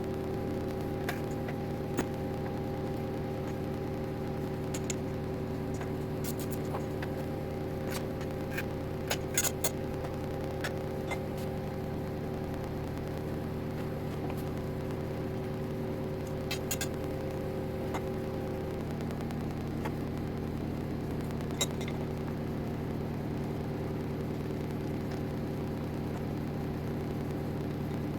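Cron Craft CNC router running, a steady motor hum and whine whose tone changes about 19 seconds in, with scattered small clicks and ticks.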